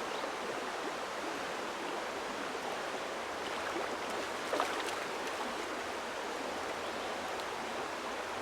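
Creek water running steadily over rocky shoals, a constant rushing hiss. A brief sharper sound stands out about halfway through.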